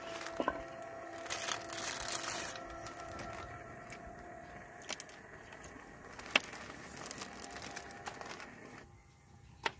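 Snack wrapper on a roll of biscuits being crinkled and torn open by hand, loudest about a second in, with a few sharp clicks.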